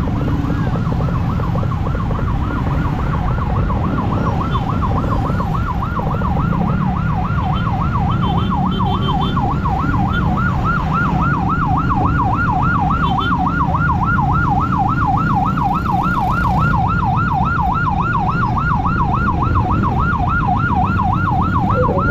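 Emergency siren in a fast yelp, sweeping quickly up and down over and over without a break, over the low rumble of motorcycle engines and jammed traffic.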